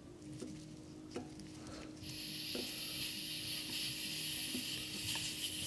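Air beginning to hiss out of a car tire's valve stem as the Schrader valve core is slowly unscrewed. A few light clicks, then from about two seconds in a steady, thin high hiss of escaping air.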